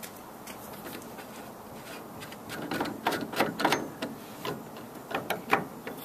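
An irregular run of sharp clicks and knocks from a roof-rack crossbar clamp being handled and adjusted by hand, starting about halfway through, the loudest a few seconds apart.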